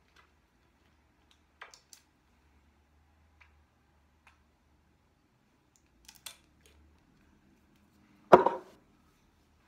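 Faint clicks and taps of a glass dropper bottle and its dropper being handled, with one much louder knock near the end.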